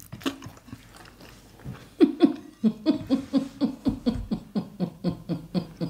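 A woman laughing in quick, even pulses, about four a second, each falling in pitch, starting about two seconds in.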